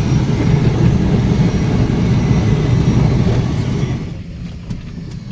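Small twin-engine airplane's engines heard from inside the cabin: a steady low drone that drops to a much lower level about four seconds in.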